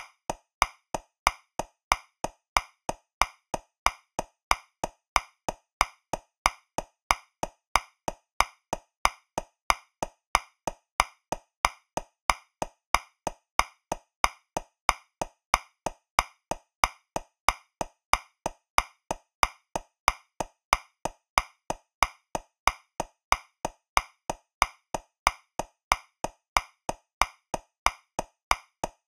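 Metronome clicking steadily at 185 beats per minute in 2/4, about three clicks a second, with a louder accented click on the first beat of each bar alternating with a softer one.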